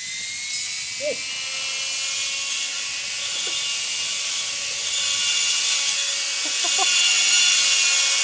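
Makita 18 V cordless grass trimmer running at speed with a steady high-pitched electric whine as its head cuts through grass, getting louder about five seconds in.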